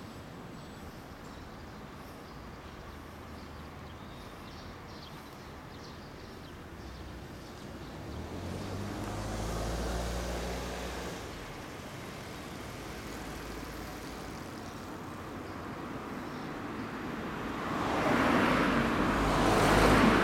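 Street traffic with a distant Suzuki GSX1400's oil-cooled inline-four running through a WR'S aftermarket exhaust at a junction, then pulling away. A deeper engine drone swells around the middle, and near the end a car passes close by, the loudest sound.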